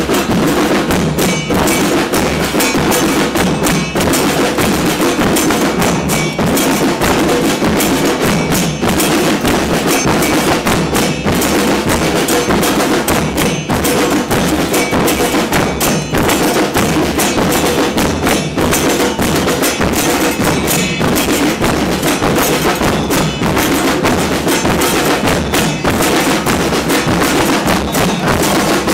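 Carnival percussion group playing: loud, dense drumming with a steady beat.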